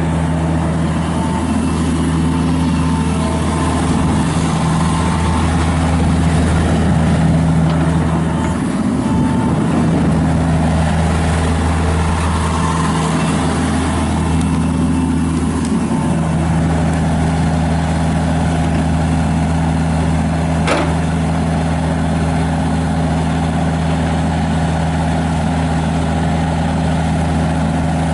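John Deere 50G mini excavator's diesel engine running at a steady speed, its note dipping and swelling a few times in the first half. A single sharp click comes about three quarters of the way through.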